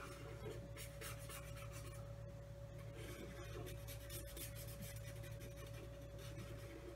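Felt-tip marker drawing on paper on a clipboard: faint, scratchy strokes in a few short runs, over a steady low hum.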